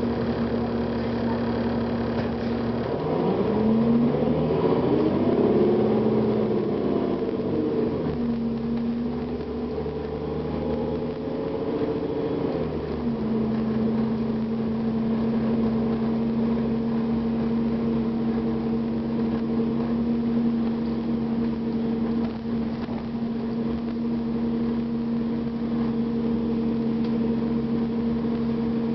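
Diesel engine of a 2009 Gillig Advantage transit bus, a Cummins ISL, running steadily. About three seconds in its pitch climbs and falls back over several seconds, then it settles to a steady run again.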